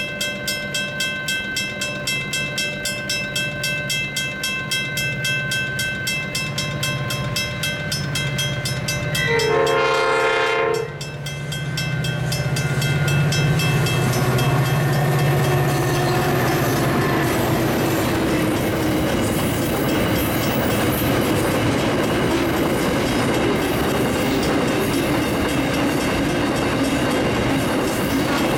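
A level-crossing bell rings about twice a second as a train approaches. About nine seconds in, the G class diesel locomotives sound their horn for about two seconds, then pass with a low engine rumble. Loaded hopper wagons follow, rolling and clattering over the rails.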